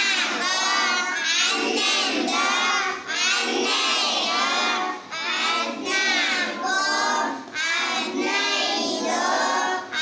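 A group of children singing together in unison, in phrases broken by short pauses.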